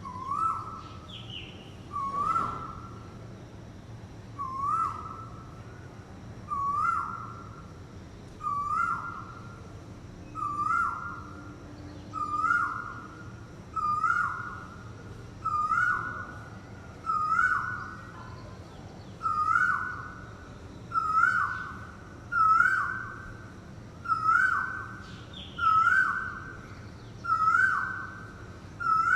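Asian koel calling a long series of single rising 'koo-ooh' notes, a little under two seconds apart, getting louder toward the end. Another bird gives a brief high chirp twice.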